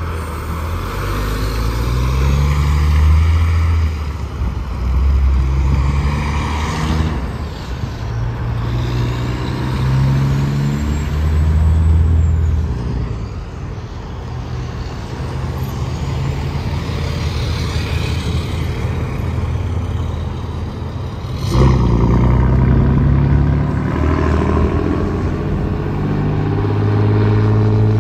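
Diesel semi-truck engines running as heavy trucks pass on a highway, the engine note stepping up and down repeatedly. A sudden sharp burst of noise comes about twenty-one seconds in, then louder engine running.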